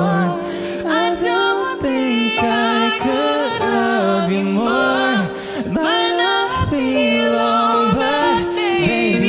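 A male pop singer's voice with layered harmony vocals, sliding through long held notes and runs over soft backing.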